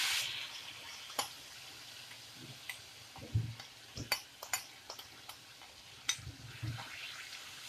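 Marinated chicken tikka pieces sizzling in hot ghee in a frying pan, loudest right at the start as they go in and settling to a steady hiss. A few sharp clicks come from a spoon scraping the chicken out of the glass bowl against the pan.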